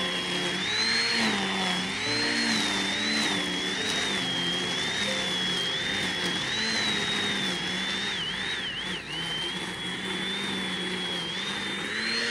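Corded electric string trimmer running, its high motor whine wavering and dipping in pitch as the line cuts into long grass.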